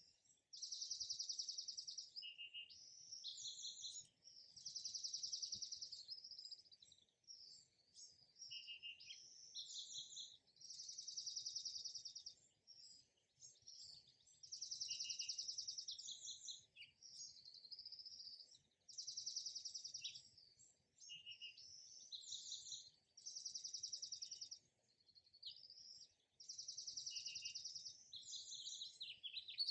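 Birds singing: a high, rapid trilling phrase comes back about every four seconds, with shorter chirps and lower notes in between.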